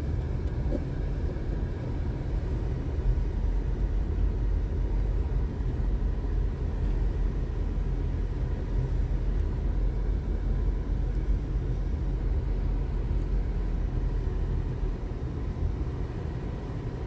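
Car driving along a narrow country lane, heard from inside the cabin: a steady low rumble of engine and tyres on the road.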